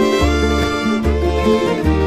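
Bluegrass band music with a fiddle over a walking bass line, no singing at this moment.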